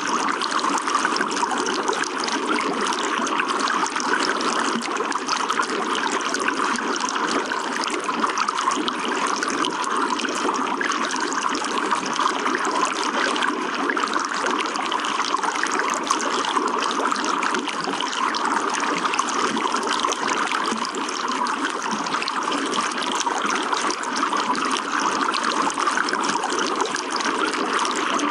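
Running water flowing steadily, an even, unbroken rush with no single splashes or breaks.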